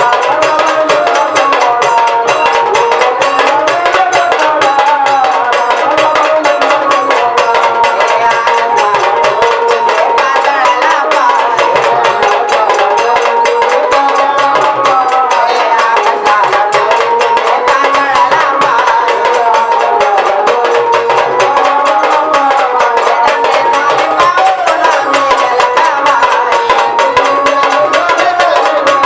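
Jagran gondhal devotional folk song: a woman's singing voice, a muruli's, with a wavering, ornamented melody over fast, steady drum and percussion accompaniment.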